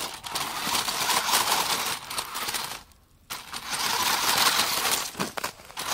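Small RC rock crawler driving over snow-covered wooden slats: its electric motor and gears running, with crackly noise from the tyres on the snow. There is a brief near-silent pause about three seconds in.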